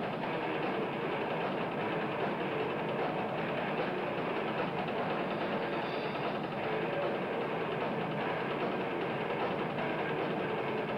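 Death metal band playing live: distorted guitars, bass and drums merge into one dense, steady wall of sound with no single note standing out.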